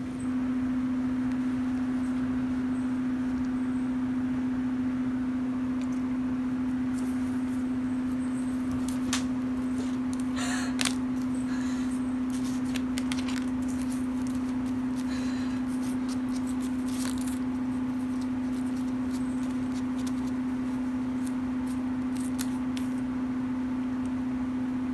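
A steady low hum throughout, with scattered light scratches and taps as a cat paws and noses a paper cutout on a wooden floor, densest about ten seconds in.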